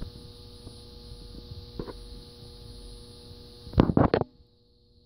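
A magnetic high-pressure sodium streetlight ballast hums steadily while overdriving a 70 W HPS bulb on its 250 W rating, a strained hum the owner calls "pissed off". A few loud knocks from handling the microphone come just before 4 seconds in, then the sound cuts out abruptly.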